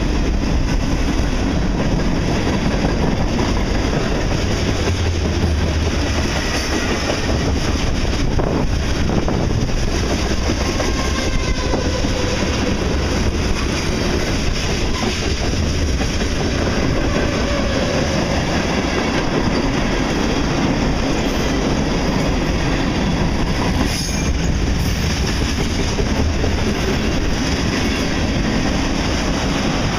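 A freight train's cars rolling past close by: a steady rumble and clatter of steel wheels on the rails, with faint wheel squeals now and then.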